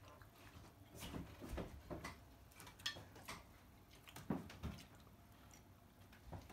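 Faint, scattered clinks and knocks of a metal knife and fork against a plate, about eight separate strokes, the sharpest a little before 3 seconds in and just after 4 seconds in.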